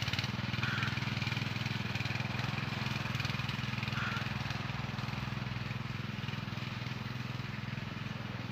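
Zimbru 6559 7 hp motor hoe's engine running steadily under load as it plows a furrow in hard ground, heard from a distance and fading slightly as it moves away.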